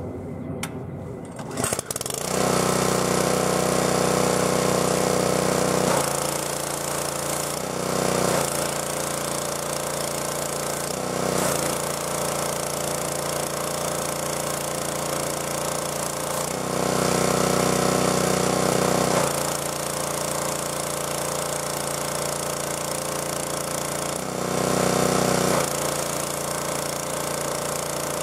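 Gas pressure washer with a Honda-clone engine running steadily, with the hiss of its water spray; it starts abruptly about two seconds in. Its engine note gets louder for a second or a few seconds at a time, several times over.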